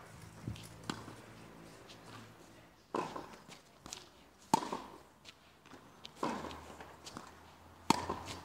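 Tennis ball being hit back and forth with rackets on an outdoor hard court: four sharp pops of racket strings and ball bounces about every one and a half seconds, with footsteps on the court.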